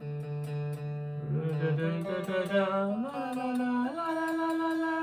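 Harley Benton TE-90 FLT electric guitar played clean through a Fender Mustang amp. A held low note gives way to a short phrase of bent and wavering notes, then slides up twice and rings out on a sustained note.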